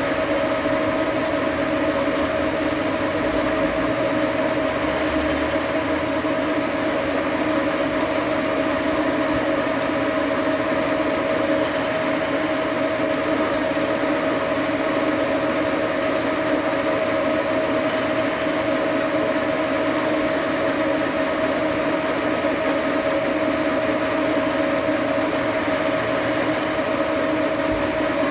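Engine lathe running with a steady two-tone hum as a grooving tool cuts ring grooves into a spinning metal hose barb. A brief high-pitched sound comes about every six seconds.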